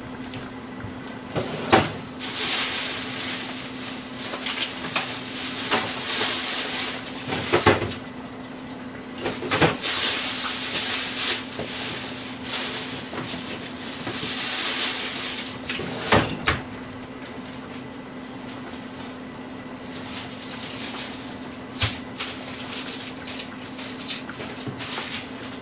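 Kitchen tap running in short spells, with dishes and utensils knocking in a sink, over a steady low hum.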